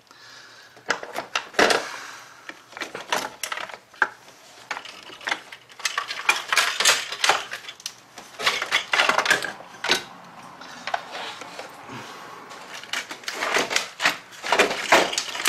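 Metal hand tools and loose bolts clinking and clicking against metal in a 3800 V6 engine bay, in irregular bunches, as the rear exhaust manifold is being unbolted.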